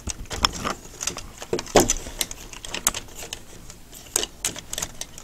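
Hard plastic parts of a Takara MP-11NR Ramjet Transformers figure being handled and moved, giving irregular clicks and clacks as joints and panels are shifted into place. A couple of louder clacks come about two seconds in and again past four seconds.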